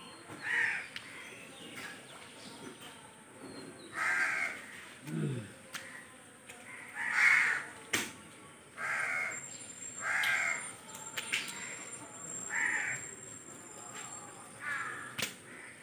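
A crow cawing repeatedly, single short harsh calls every one to three seconds, with a few faint sharp clicks between them.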